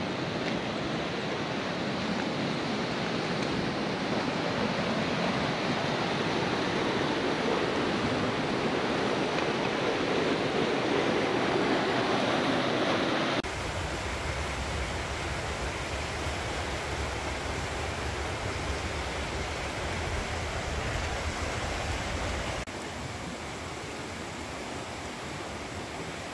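Rushing river water from rapids and a small falls over rock, a steady noise that changes abruptly twice, about 13 and 23 seconds in, the last stretch quieter.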